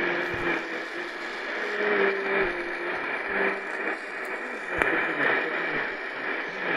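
Sangean PR-D19 portable radio's speaker playing a weak AM medium-wave signal on 1270 kHz. It is mostly static and hiss with faint wavering tones, from a station too weak to identify. A few soft knocks come through as the radio is handled and turned.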